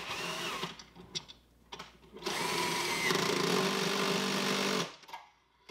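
Power drill running a lag bolt through a hose reel's mounting base into a wooden wall with a long extension bit. A short burst, then a steady run of about two and a half seconds that stops suddenly.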